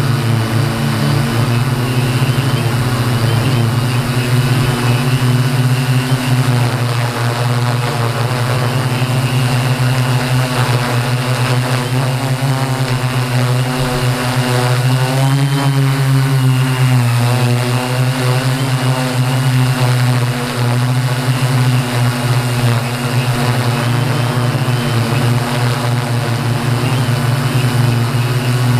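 Align M480 multirotor's electric motors and propellers whining steadily, heard from the camera on board, the pitch wavering up and down about halfway through.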